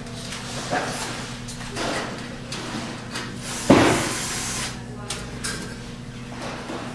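Sheet-metal knocking and scraping at a fluorescent strip fixture as a metal end plate is handled and fitted onto its channel, with one loud clank near the middle that rings briefly. A steady low hum runs underneath.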